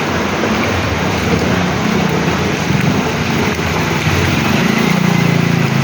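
A motor vehicle's engine humming low under a steady rushing hiss, the engine growing louder near the end.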